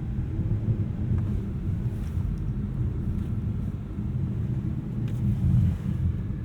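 BMW E92 M3 under way in snow: a steady low rumble of its V8 engine and tyres, with no rise or fall in pitch.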